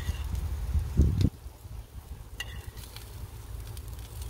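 Marinade sizzling faintly on vegetables on a hot grill screen, with a short low thump about a second in and a couple of light clicks.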